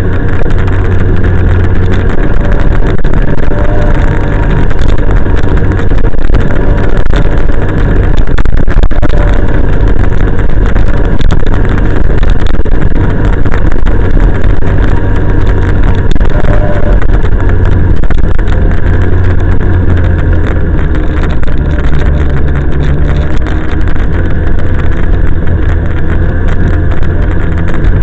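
Snowmobile engine running loudly and steadily as the sled travels along the trail, heard from on board, its pitch shifting a little with the throttle.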